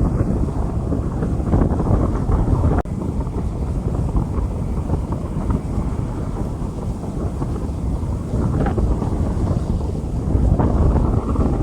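Rain falling on a street, with heavy wind buffeting the microphone in a steady low rumble.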